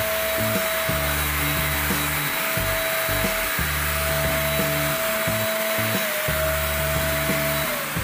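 Handheld electric paint spray gun running: a steady motor whine with the hiss of the spray, which dips at the very end. Background music with a bass line plays underneath.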